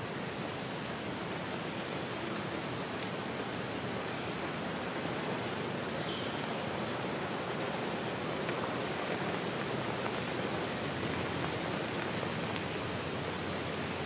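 Stream water rushing steadily over rocks below a small waterfall. Faint, short, high bird chirps come and go, mostly in the first half.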